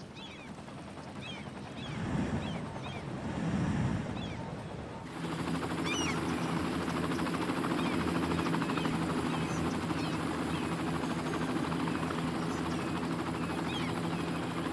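Small birds chirping over a low rumble. About five seconds in, the sound switches abruptly to a steady engine hum, with the chirping going on over it.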